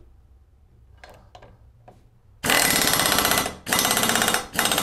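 Pneumatic impact wrench hammering a scooter's front axle nut tight, in three bursts with short breaks between them, the first about a second long. A few light clicks come before it.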